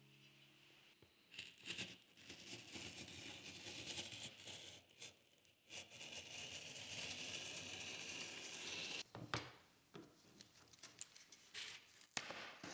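Cardboard being worked by hand: several seconds of scraping, crinkling and tearing, then a few sharp clicks and taps near the end.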